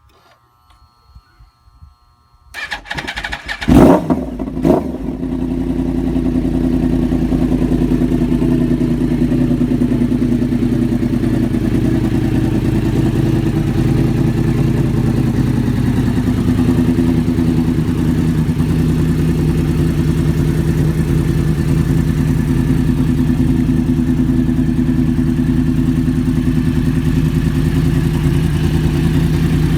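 Yamaha R1 inline-four sport bike with a loud exhaust being started: a short cranking, then it catches with a sharp rev about four seconds in, blips once more, and settles into a steady, loud idle.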